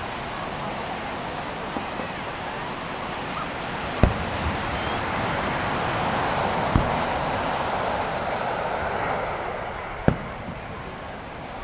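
Firework shells bursting far off as sharp single booms, the loudest about four, seven and ten seconds in, over a steady wash of surf on the beach.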